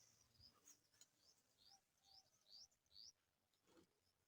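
Faint birdsong: a small bird gives a run of short, high, upward-sweeping chirps, about three a second, with other scattered bird calls around it.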